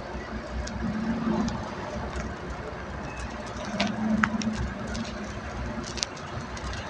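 Slow, congested city traffic heard from inside a car: a steady rumble of engines and tyres, with a low drone that swells twice and a few short clicks.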